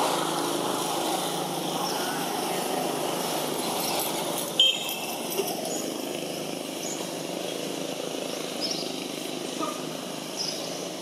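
Steady outdoor background noise with a low hum, one sharp short squeak about four and a half seconds in, and a few faint high chirps after it.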